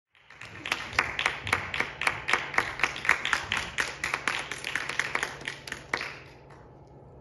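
Audience applauding, with separate claps standing out, dying away about six seconds in.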